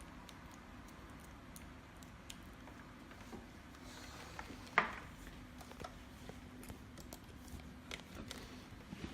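Faint clicks and light handling noise over a low steady hum, with one sharper click a little before the five-second mark.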